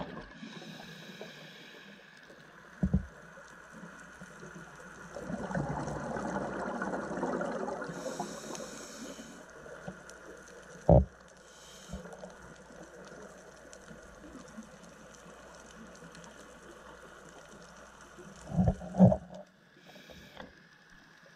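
Underwater sound heard through a GoPro's dive housing: a scuba diver's breathing, with exhaled bubbles gurgling in bursts and brief hisses between them. Sharp knocks sound about three seconds in, once near the middle, and twice near the end, the last ones the loudest.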